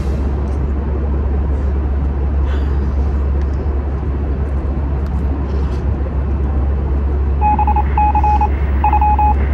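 Steady low rumble of a vehicle's cabin. About seven seconds in, an electronic beeping starts: short high beeps repeated in quick clusters.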